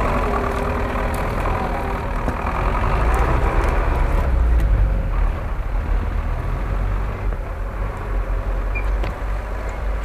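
GAZ-66 truck's engine working under load with wavering revs as it drives through snow, getting quieter in the second half as it pulls away.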